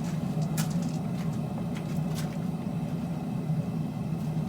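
Forge running with a steady low roar, with a couple of sharp clicks, one under a second in and one about two seconds in.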